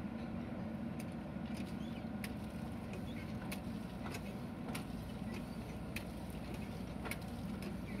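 JCB 3DX backhoe loader's diesel engine running steadily as the backhoe arm lifts a bucket of soil out of a trench. Short sharp clicks sound every second or so.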